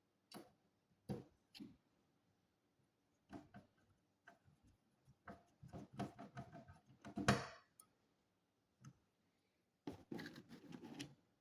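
Scattered clicks, taps and handling noises, as of hands working on plastic parts, with a denser run about six to seven seconds in and another near the end.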